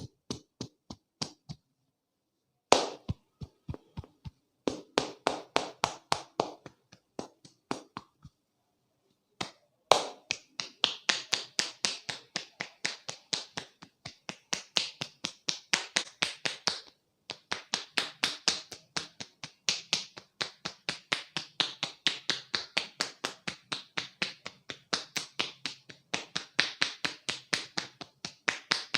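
Rapid, rhythmic hand taps and slaps of a percussive head massage, about five a second. They stop briefly twice in the first nine seconds, then run on steadily.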